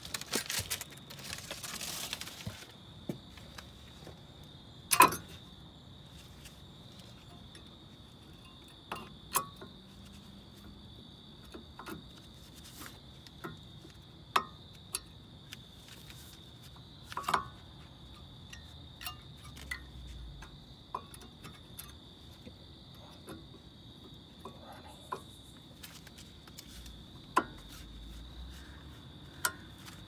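Brake pads and their metal clips clicking and clinking against the caliper bracket as they are worked into place on a Kia Soul's front brake: a scraping rustle at first, then a dozen or so sharp light clicks spaced irregularly, the loudest about five seconds in. A steady high-pitched tone sounds behind them throughout.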